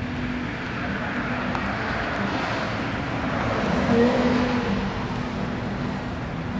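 A passing road vehicle: a swell of traffic noise that rises over a couple of seconds, peaks about four seconds in, then fades, over a steady low background hum.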